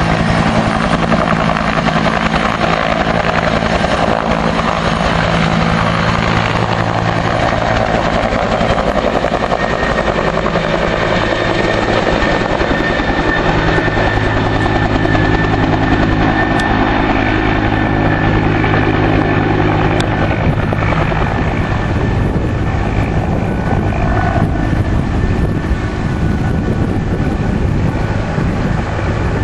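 Firefighting helicopter's rotor and engine, loud and steady, a deep rotor beat under a dense rushing wash.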